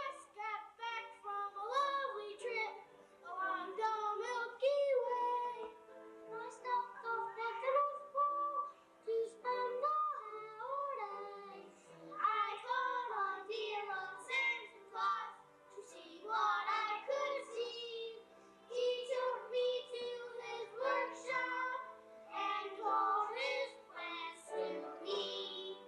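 Children's choir singing a song, with young voices carrying the melody together.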